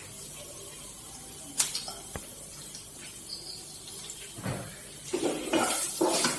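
Sliced garlic and ginger frying gently in oil in a nonstick pan: a faint steady sizzle with a couple of light taps, then a spatula stirring and scraping the pan from about five seconds in.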